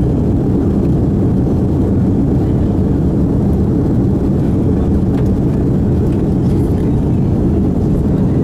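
Cabin noise inside an Airbus A340-300 rolling on the runway, heard from a window seat over the wing: its four CFM56 turbofan engines and the rolling of the wheels make a steady low rumble.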